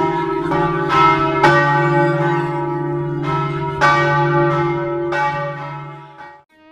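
The church bells of St Mark's Campanile ringing, heard close up from inside the belfry. Several strikes fall over a long, loud, humming ring, and the sound fades away near the end.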